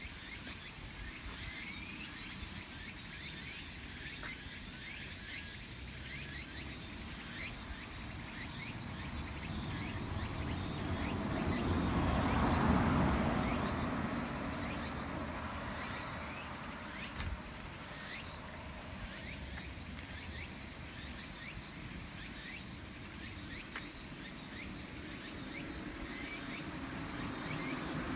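A car passes on the road, growing louder to a peak about halfway through and then fading, over a steady high-pitched insect hum.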